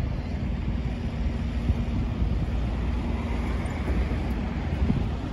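City bus approaching along the station's bus road, its engine giving a steady low drone over a rumble of road traffic. Wind buffets the microphone.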